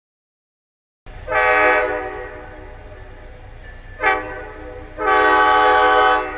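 Locomotive horn sounding a long blast, a short blast about three seconds later, then a second long blast, over a steady low rumble.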